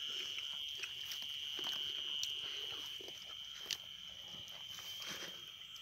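Steady high-pitched chirring of night insects, with scattered faint clicks and rustles from hands eating rice off banana leaves.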